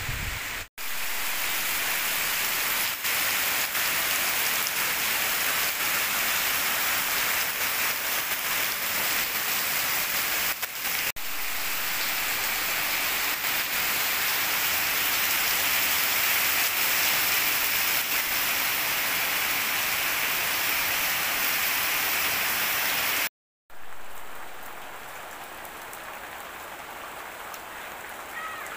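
Steady rain falling: a dense, even hiss with no speech. It cuts out sharply for a moment about a second in and again about four-fifths of the way through, and after the second break it is lighter and quieter.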